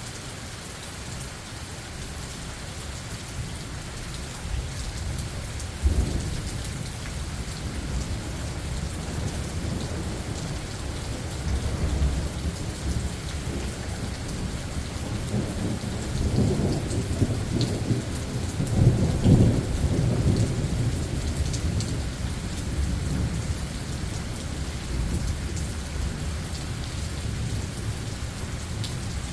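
Steady rain hissing on the forest floor, with a sharp thunderclap about six seconds in and then long rolls of low thunder that build and peak about two-thirds of the way through.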